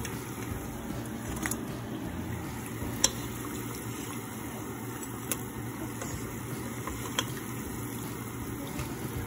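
Churros deep-frying in hot oil, a steady bubbling sizzle, with a few sharp clicks of a metal slotted spoon against the pot as they are turned.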